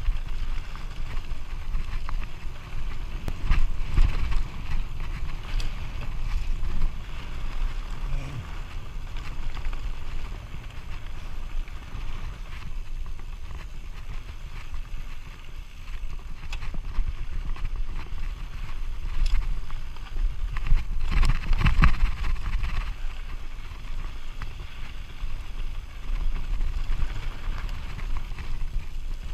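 Mountain bike riding fast down a rough gravel track: tyres crunching over loose stones and the bike rattling over every bump, with wind rumbling on the microphone. Heavier jolts about 4 seconds in and again about 22 seconds in.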